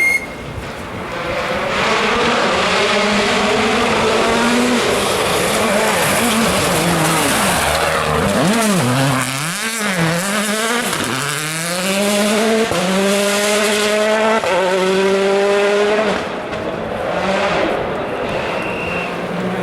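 A World Rally Car's turbocharged 1.6-litre four-cylinder engine revving hard through the gears as it approaches, passing close with the pitch swooping down about halfway, then pulling away with rising revs and quick upshifts. Tyre noise runs under the engine.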